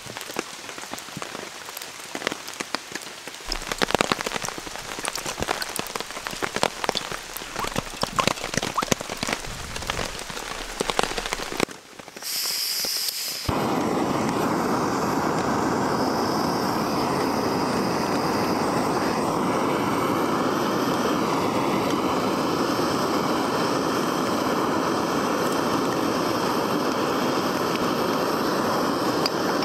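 Steady rain falling on ferns and rocks, with many small drop hits. About twelve seconds in, a short hiss of gas comes from a canister camping stove; the stove then lights and its burner runs with a steady, even rushing noise.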